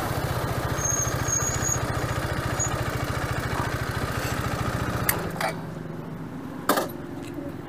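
Motorcycle engine running steadily with an even, fast pulse, dropping in level about five seconds in. A few sharp clicks near the end.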